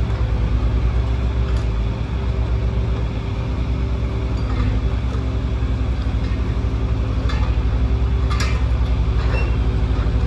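Excavator's diesel engine running steadily, a low, fast-pulsing throb with a steady hum over it. A few short clicks and a brief squeak come near the end.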